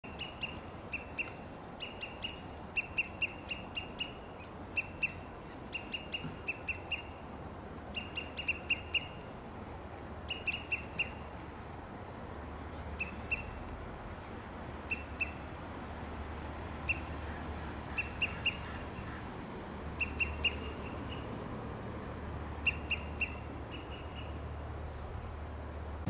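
Olive-sided flycatcher giving its sharp pip call in quick runs of two to four notes, repeated every second or two and coming less often in the second half. A steady low rumble runs beneath.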